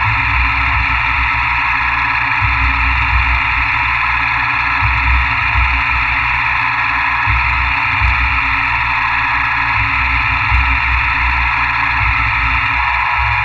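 CNC milling machine running steadily through a cut, with a constant whine and an uneven low rumble underneath.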